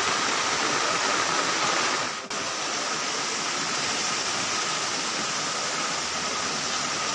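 Floodwater rushing steadily. About two seconds in the sound breaks off for an instant, then a similar steady rush of water continues, a little quieter.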